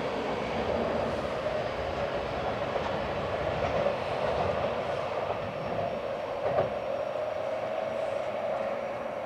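JR West 223 series electric train pulling away along the track, its running noise steady and slowly fading as it draws off.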